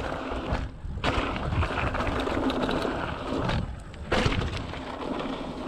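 Mountain bike riding noise: knobby tyres rolling and rattling over a dirt trail, with wind buffeting the camera microphone. The noise is continuous apart from two brief lulls, about a second in and around four seconds in.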